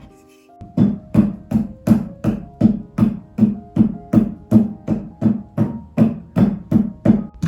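A steady run of about twenty heavy strikes, roughly three a second, starting about a second in, each a sharp hit with a short thudding ring, over faint background music.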